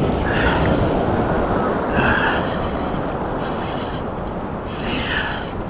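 Wind rumbling on the microphone over the steady wash of shallow surf, with three brief hisses.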